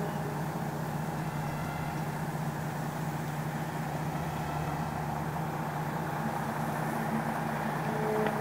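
Steady low droning hum of unknown source, which the recordist took to be coming from the sky. A horn-like pitched tone over the drone fades out at the start and swells back in near the end.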